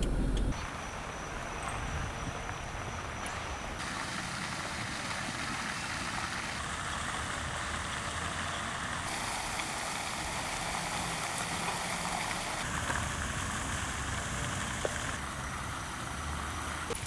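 Steady road and engine noise of a car driving, heard as an even hiss that shifts abruptly in tone every few seconds.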